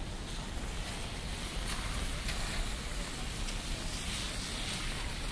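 Rainy city street ambience: a steady hiss of rain and tyres on wet road over a low traffic rumble, with a few drops tapping on an umbrella.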